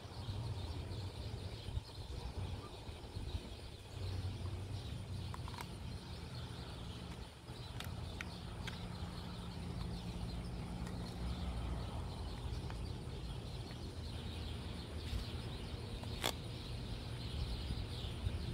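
Quiet outdoor background noise: a steady low rumble and a faint hiss, with a few soft clicks, the sharpest one near the end.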